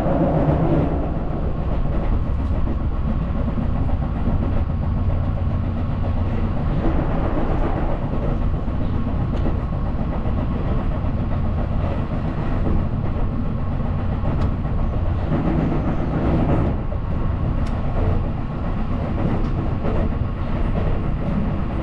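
Electric commuter train heard from inside the carriage while running: a steady rumble with occasional wheel clicks over rail joints, louder at the start as it crosses a steel truss bridge.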